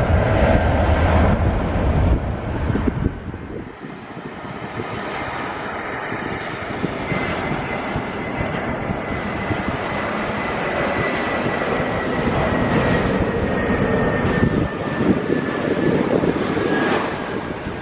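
Aircraft engine noise: a loud low rumble that eases off about three seconds in, then a steady rushing sound with a thin high whine slowly falling in pitch.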